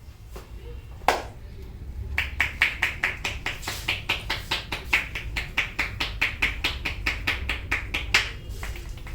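Barber's hands striking a client's head in fast percussive head massage, about five strokes a second for some six seconds. A single sharp crack comes about a second in.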